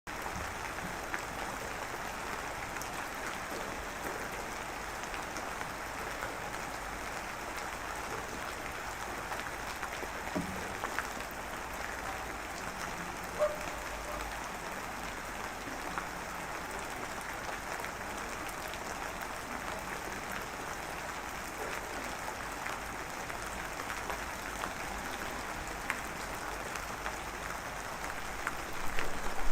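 Steady rain falling, with a constant hiss and many small scattered drop taps, a few of them a little louder.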